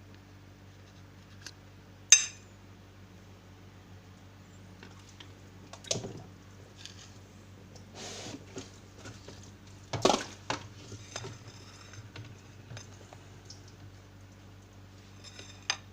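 Cutlery and dishes being handled: a few separate clinks and knocks of a spoon and utensils against a plate, the sharpest about two seconds in and another with a brief ring about ten seconds in.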